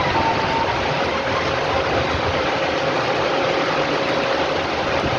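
Steady noise of heavy rain, with a faint steady hum underneath.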